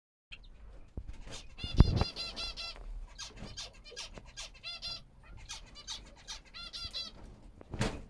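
European greenfinches calling: a string of short chirps and several runs of rapid, nasal-sounding repeated twittering notes. A loud thump comes about two seconds in, and a shorter burst of noise near the end.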